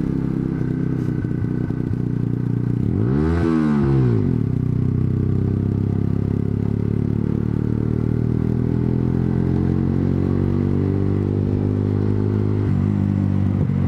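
Honda CBR125R's single-cylinder engine running steadily on the road, with another vehicle passing close by about three and a half seconds in. From about halfway the engine note rises slowly as the bike picks up speed, then steps down near the end.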